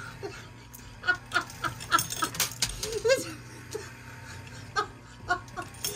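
A person laughing hard in runs of short, quick bursts, near breathless.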